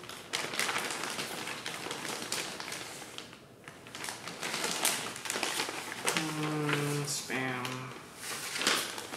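A packaging wrapper crinkling and rustling as it is handled and unwrapped, in a dense run of crackles with a short lull about three and a half seconds in.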